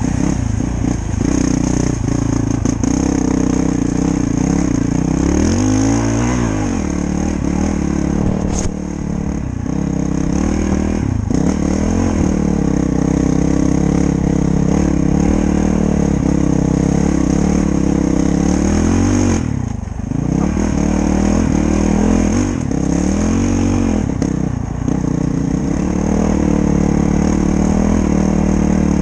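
Honda CRF450L's single-cylinder four-stroke engine running under way on a dirt trail, its pitch rising and falling as the throttle is worked. About twenty seconds in the revs drop sharply as the throttle is closed, then climb again.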